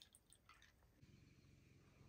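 Faint wet squishing and dripping as orange pieces are squeezed in a hand-lever citrus press, juice trickling into a metal bowl. The squishing stops about a second in, leaving a faint low steady rumble.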